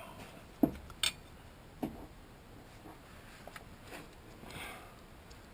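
A few sharp clicks and knocks of hand tools on metal, three in the first two seconds, then fainter ticks and a soft rustle.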